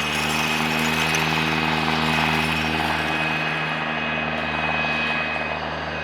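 Light aircraft engine and propeller droning steadily, swelling slightly then easing near the end, with a steady high whine above it.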